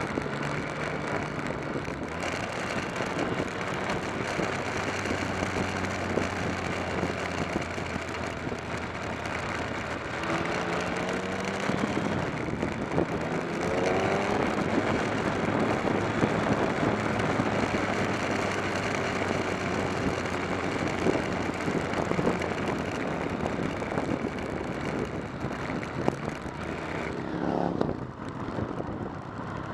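Motorcycle engine running under way, heard from a camera on the bike with wind noise over it; the engine note rises a few times as the bike accelerates, about a third of the way in, around the middle and again near the end.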